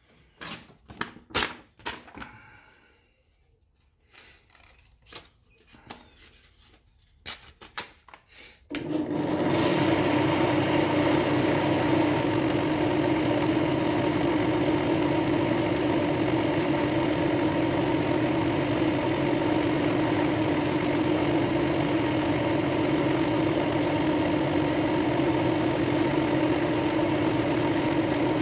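A few scattered clicks and knocks, then a drill press motor starts about nine seconds in and runs with a steady hum, spinning a wood-and-brass ring on a dowel mandrel while it is hand-sanded with 1200-grit paper.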